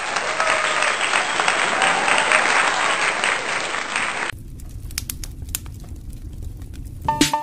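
Applause, as a dense clapping sound effect in a channel intro, for about four seconds, then cut off abruptly. It gives way to a quieter low rumble with scattered clicks, and a short electronic tone near the end.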